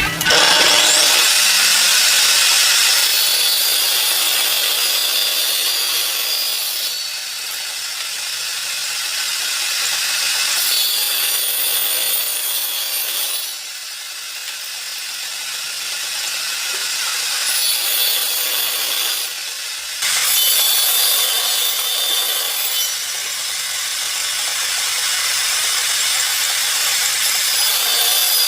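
Wood being cut or shaped with a tool: a continuous rasping scrape that shifts in level and texture every few seconds.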